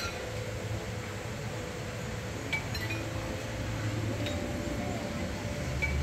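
Distant construction-site work: a steady machinery hum with several sharp metallic clinks, each ringing briefly. A deeper rumble comes in near the end.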